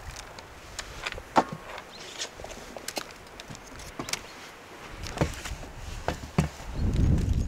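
Irregular light clicks and knocks, the loudest about a second and a half in with a brief ring. A low rumbling noise comes up near the end.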